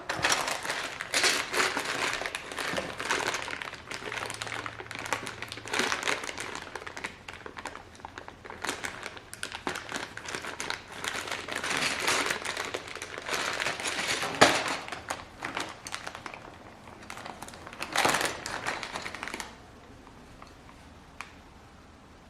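Plastic packaging crinkling and rustling as it is handled, with irregular clicks and clatter, stopping about three seconds before the end.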